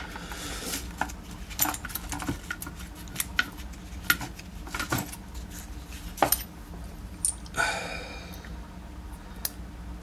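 Small metal clicks and clinks from a DOM iX dimple lock cylinder and its key being handled while a shim is worked in around the plug, with a short scrape a little under eight seconds in.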